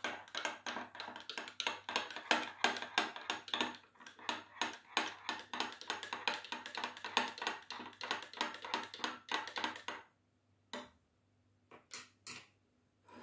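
Metal teaspoon stirring instant Turkish coffee in a small porcelain cup, clinking rapidly against the cup's sides. The stirring stops about ten seconds in, followed by a few single clinks as the spoon is set down.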